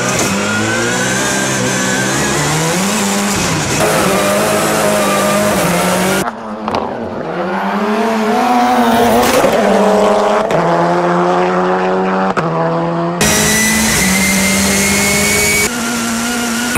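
A race-car engine revving up and down, with abrupt cuts between takes. A high whine runs for a couple of seconds near the end.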